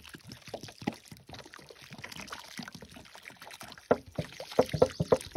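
Water glugging and splashing out of a plastic gallon jug onto freshly dug soil around a seedling, with a steady pouring hiss and louder glugs in the last second and a half.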